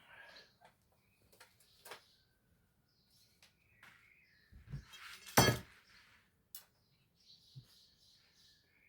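Scattered clicks and knocks of a landing-net frame and its support connector being handled and locked into place, the loudest knock about five and a half seconds in.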